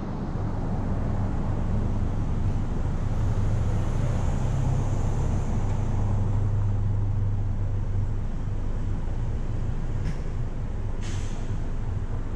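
Steady low rumble of a car idling at a stoplight amid street traffic. It swells for a few seconds midway as another vehicle passes close by, and two short ticks sound near the end.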